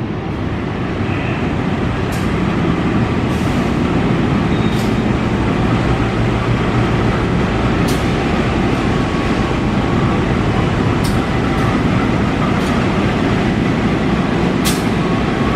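GE-built CC 204 diesel-electric locomotive hauling a passenger train slowly past: diesel engine running and steel wheels on the rails, getting louder over the first two seconds and then holding steady, with a few sharp clicks.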